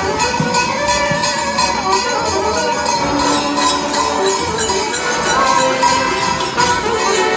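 Live folk dance music from an accordion and saxophone, with bells jingling in a steady beat over the tune.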